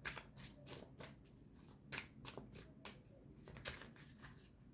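A deck of oracle cards being shuffled by hand: a quiet run of soft, irregular card clicks and slaps.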